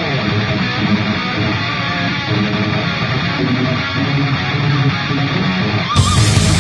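Background music with electric guitar, a steady rock track.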